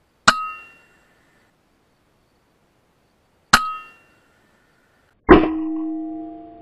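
Three sharp shots from a suppressed .22 PCP air rifle, each with a metallic clang and ring. The first two come about three seconds apart, and the third, a second or two later, rings lower and longer.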